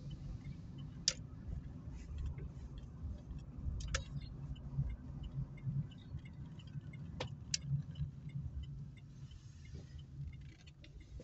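Opel Meriva driving slowly, heard from inside the cabin: a steady low engine and road rumble with scattered sharp clicks and small rattles, the loudest about a second in and around seven seconds in.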